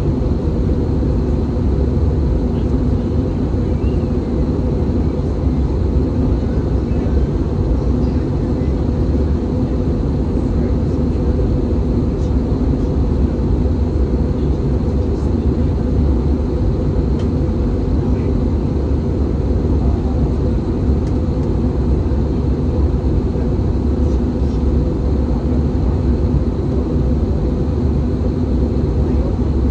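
Steady, deep rumble inside the cabin of an Airbus A320-214 in descent: airflow over the fuselage mixed with the drone of its CFM56 turbofan engines.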